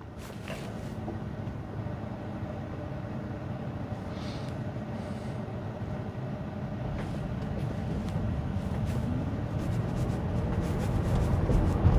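Road and tyre noise inside a Tesla Model Y's cabin, growing louder as the car pulls away from a stop, with a faint rising whine near the end.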